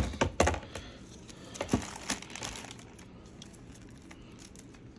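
Plastic toy train track pieces being handled and set down: a few sharp clicks and knocks in the first two seconds, then only faint handling.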